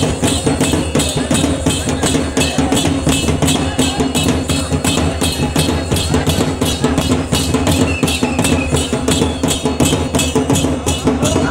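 Folk stick-dance music: a drum and the clack of wooden dance sticks keep a fast, steady beat of about three to four strokes a second.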